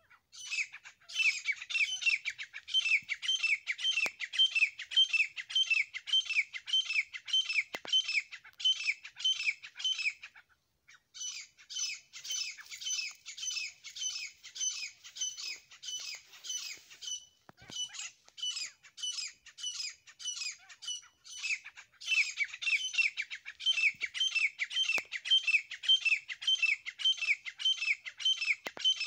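Grey francolin (desi teetar) calling: a long run of harsh, rapidly repeated notes, several a second, broken by a few brief pauses.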